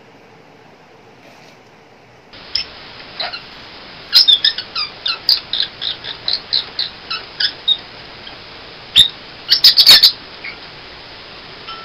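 Small green pet parrot chirping: a quick run of short, sharp, high-pitched chirps, about a dozen in a few seconds, then a brief cluster a couple of seconds later and one more near the end, over a steady background hiss.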